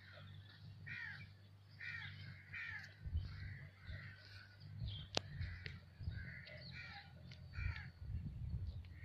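Birds calling one after another in short, harsh calls, over a low rumble that swells now and then. A single sharp click about five seconds in.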